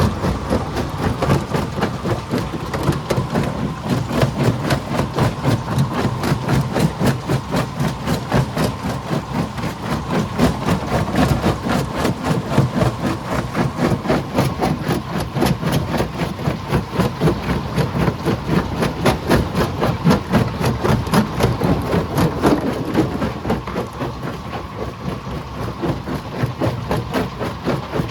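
Heavy rock-crushing machinery at work: a fast, even stream of knocks over an engine's low drone, with a steady whine running through it. It eases a little for a few seconds near the end.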